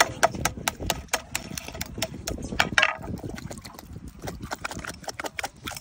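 Quick, sharp clicks and taps, about four or five a second, as a knife chips and cracks around the shell of a sea urchin to open it, with a short crunch about three seconds in.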